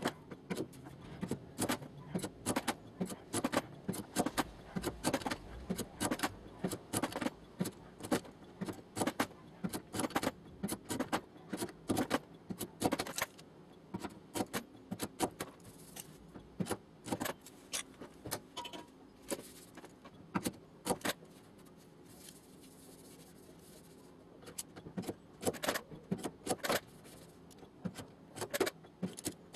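Light metallic hammer taps on the sheet-steel skin of a car door, quick and irregular with a short pause near the end: panel beating to straighten out a dent.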